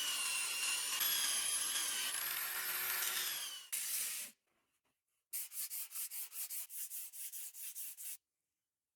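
A small power tool works metal with a steady, high whine and stops about four seconds in. After a short pause, quick back-and-forth rubbing strokes follow, about four to five a second, like hand sanding or scrubbing of rusty padlock parts. They stop abruptly near the end.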